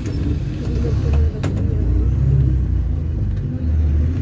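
Diesel engine of a Volare V9L minibus on an Agrale chassis running under way, heard from inside the bus as a steady low rumble. The engine sound dips briefly about a second in and again near the end.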